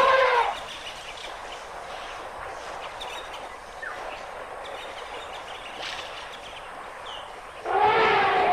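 Quiet outdoor ambience with a few faint bird chirps, then, near the end, a loud, wavering call from an African elephant begins.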